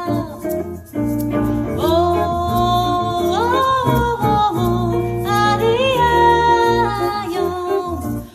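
A woman singing live with guitar accompaniment, holding long notes that waver and slide in pitch over the strummed chords.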